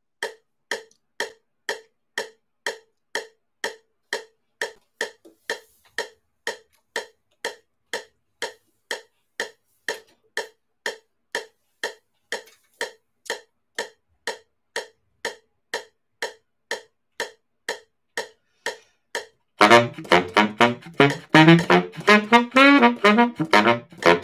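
Metronome clicking steadily at about two clicks a second. About 19 seconds in, a baritone saxophone comes in much louder, playing a busy run of notes.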